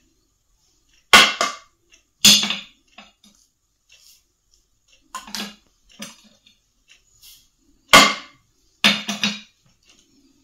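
Sharp clinks of ceramic dishes, about seven, spaced a second or more apart: small porcelain spice bowls knocked against a china mixing bowl and set back down on a ceramic tray as dried spices are tipped in.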